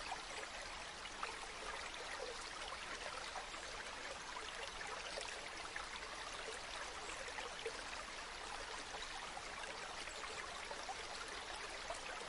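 Running water: a stream or small cascade burbling and splashing steadily.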